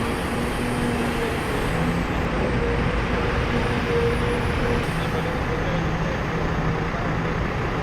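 Diesel engine of a Sennebogen material handler running steadily, a continuous rumble with a low, even hum.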